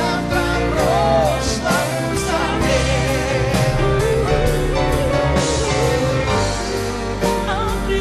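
A song with a woman singing long held notes with wide vibrato over a full instrumental backing.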